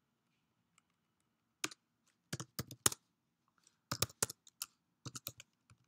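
Typing on a computer keyboard: short keystroke clicks in irregular clusters, starting about a second and a half in after a brief quiet spell.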